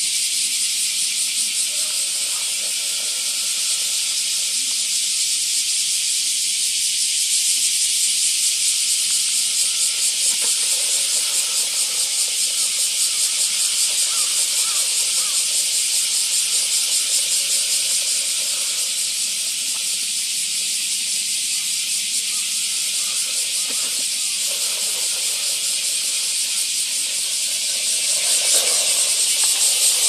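Robot vacuum cleaner running: a steady, high-pitched hiss with a fast flutter, a little louder near the end.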